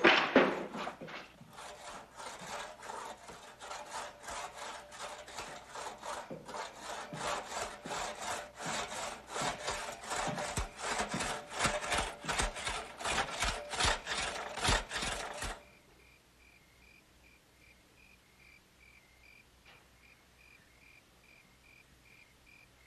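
Handsaw cutting wood in repeated back-and-forth strokes, about two a second and growing louder, which stop suddenly about two-thirds of the way through. After that, only faint crickets chirping.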